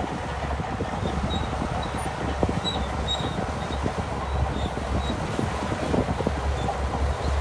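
Shantui DH17C2 crawler bulldozer working: a steady diesel engine rumble with irregular clanks and rattles from its steel tracks.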